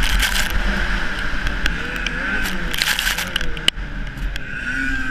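Ski-Doo snowmobile engine running at racing speed, its pitch rising and falling a little with the throttle, under heavy wind rush on the microphone. Scattered ticks and a sharp knock toward the end.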